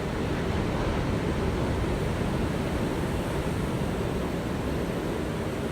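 Ocean surf washing in a steady, unbroken wash.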